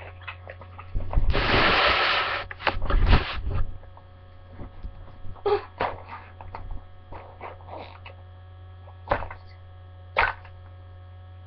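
Steady electrical mains hum from the webcam's microphone, broken about a second in by a loud burst of rustling and bumping noise of the laptop and microphone being handled, lasting about two and a half seconds. Scattered faint knocks and rustles follow, with two sharper clicks near the end.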